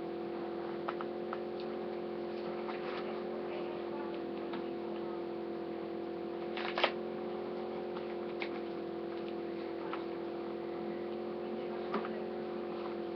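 Scattered light clicks and taps of small objects being handled, the sharpest about seven seconds in, over a steady electrical hum.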